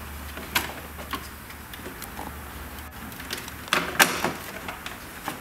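Plastic vehicle grille being pushed back into place: a series of irregular plastic clicks and knocks, the loudest about four seconds in.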